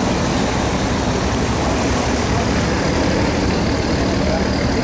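A sand barge's diesel engine running steadily, with water churning and rushing along the hull.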